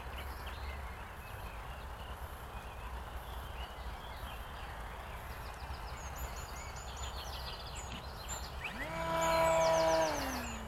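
Electric motor and propeller of a Carbon-Z Cessna 150 RC plane whining. About nine seconds in the pitch rises, holds steady for about a second, then drops away. Birds chirp throughout over a low rumble of wind.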